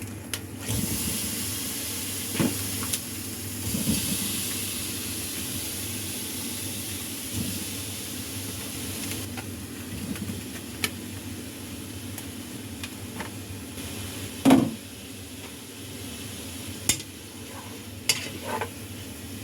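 Chicken meatballs sizzling as they fry in a hot pan, the sizzle starting just under a second in and strongest in the first half. Occasional knocks of a utensil against the pan as the meatballs are turned, the loudest about three-quarters of the way through.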